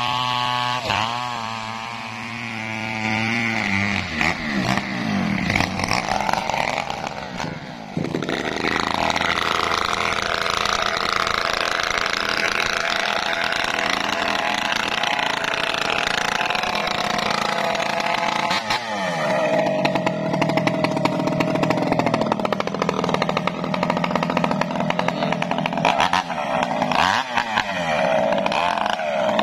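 Two-stroke chainsaw running at high revs and sawing through a coconut palm trunk, its engine pitch sagging and recovering repeatedly as the chain bites into the wood. It gets suddenly louder about a third of the way in.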